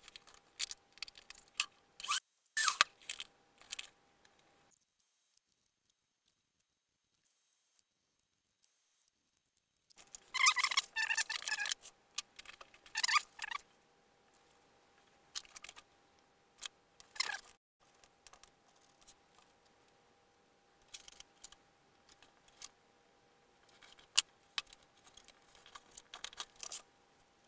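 Intermittent scraping, tapping and clicking of hands at a workbench: a hobby knife cutting a small piece of thin wood and parts handled against a foam airframe, over a faint steady hum. There is a quiet gap of several seconds near the middle.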